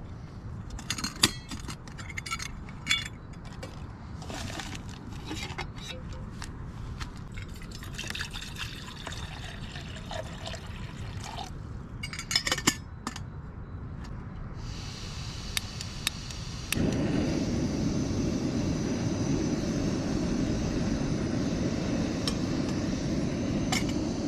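Metal cookware clinking and water being poured into a pot. About 15 seconds in, the gas starts to hiss as the remote-canister stove's valve opens, then a few clicks. Near 17 seconds the burner lights and runs with a steady rushing flame, louder than anything before it.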